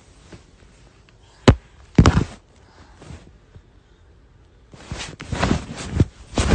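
Handling noise from a phone being moved about close to its microphone: two sharp knocks about half a second apart, then a cluster of thumps and rubbing near the end.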